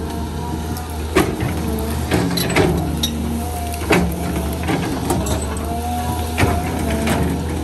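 Caterpillar 320 hydraulic excavator at work: its diesel engine running steadily under load, with hydraulic whine rising and falling as the boom and bucket move. Repeated sharp cracks of brush and small trees snapping as the bucket tears through them.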